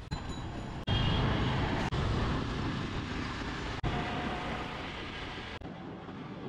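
Wind rumble on the microphone and road and engine noise from a motorcycle being ridden, with traffic around it. It is broken by short sudden dropouts about four times.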